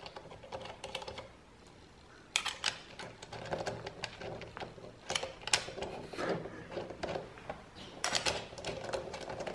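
Short Allen-head bolts being threaded by hand into a metal mounting bracket: light metallic clicks and scrapes in short bunches, with a quieter pause about a second in.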